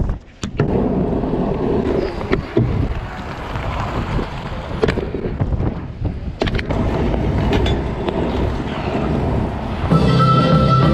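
Stunt scooter's wheels rolling over pavement, with wind buffeting the microphone and occasional sharp clacks. Band music starts near the end.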